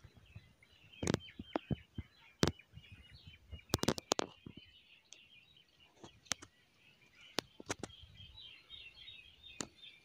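Birds chirping in many short, rapid notes, with a series of sharp clicks and knocks scattered through, the loudest about a second, two and a half and four seconds in.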